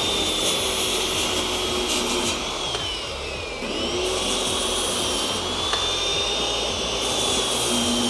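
A 15-amp DeWalt corded circular saw cutting through plywood: a steady, high motor whine. The whine falls in pitch between about two and three and a half seconds in as the blade slows in the cut, then jumps back up.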